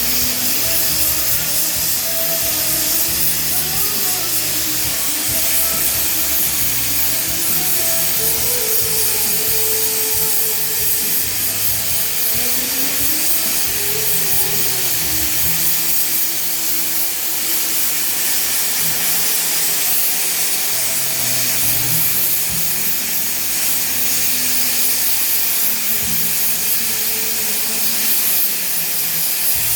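Steady hiss of a gas torch used in welding quartz, with background music playing over it.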